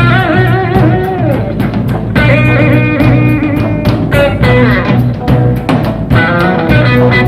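Live blues-rock band playing an instrumental break: electric guitar lead with bent, wavering notes over bass and a steady drum beat.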